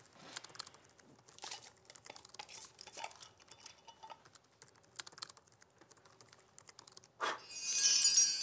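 Computer keyboard typing in light, scattered clicks. About seven seconds in comes a puff of breath, then a loud, bright, glittering shimmer: a magic sound effect for sleep sand blown from a cupped hand.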